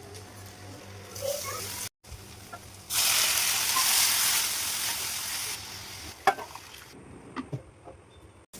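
Food frying in hot oil in a pan: a loud burst of sizzling starts suddenly about three seconds in and fades down after a couple of seconds. A few sharp utensil clicks follow near the end.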